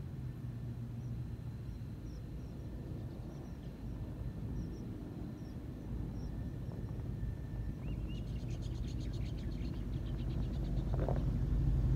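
Ram 1500's 5.7-litre Hemi V8 running through an MBRP catback exhaust, a low steady drone that grows louder toward the end as the truck nears. Birds chirp in the background, with a fast trill about two-thirds of the way through.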